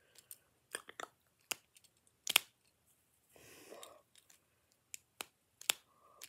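Sharp plastic clicks and snaps from a rugged AirPods case being handled, its locking lid latch and clip clicking under the fingers: a string of separate clicks, the loudest about two and a half seconds in.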